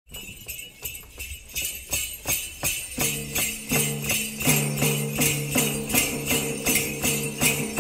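Background music driven by jingling sleigh bells on a steady quick beat, with bass notes coming in about three seconds in.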